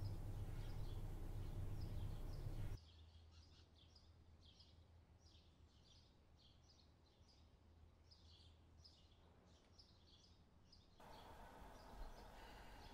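Small birds chirping repeatedly over faint outdoor background noise. A low hum under the first three seconds cuts off abruptly, and the background noise rises again near the end.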